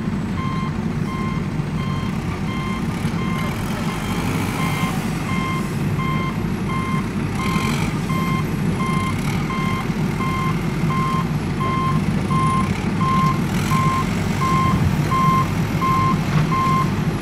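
Heavy vehicle's reversing alarm beeping steadily, about one and a half beeps a second and growing louder, over the low rumble of its engine running.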